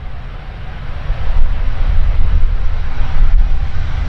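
Short Skyvan's twin turboprop engines with seven-blade propellers at take-off power during the take-off roll: a steady low rumble and propeller noise that grows louder about a second in as the aircraft nears.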